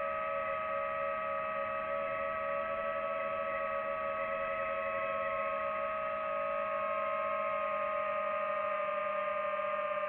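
DJI FPV drone's motors and propellers whining steadily in flight, heard from on board. The whine is made of several close pitches that shift slightly about six seconds in.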